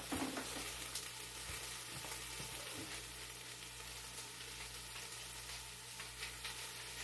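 Beef chuck roast sizzling in the hot inner pot of an electric pressure cooker on its sauté setting, a steady frying hiss with a low hum underneath and a few light knocks of handling in the pot.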